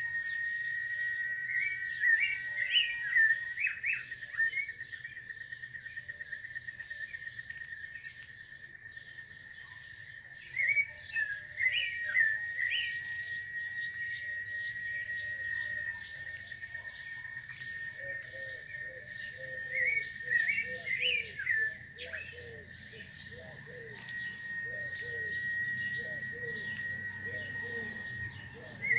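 Birds chirping in quick clusters over a steady high-pitched drone. Past the middle, a run of short lower notes repeats about twice a second.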